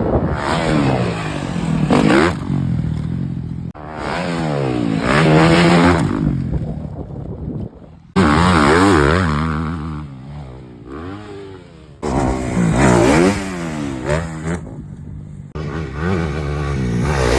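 Dirt bike engines revving, pitch climbing and dropping as the throttle is worked, in several separate runs that start and stop abruptly.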